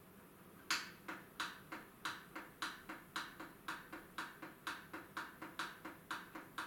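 Rapid, evenly spaced clicks from a small digital radio's controls as its settings are stepped through, starting about a second in and running at about three to four a second, the first click the loudest.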